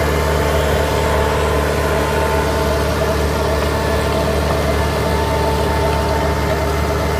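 Farm tractor engine running at a steady speed, its pitch and loudness unchanging.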